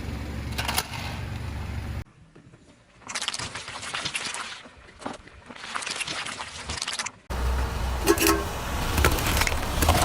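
Car engine running and objects crackling and crunching under the tyres, in several short clips that cut abruptly from one to the next.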